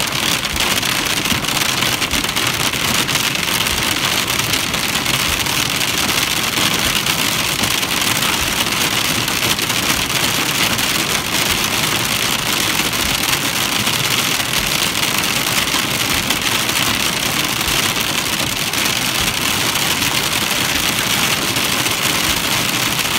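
Heavy rain pelting a moving car's windshield and roof, heard from inside the cabin as a steady, dense patter of drops.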